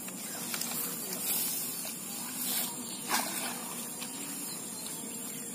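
Steady high-pitched outdoor hiss with a few faint clicks and knocks, the loudest about three seconds in.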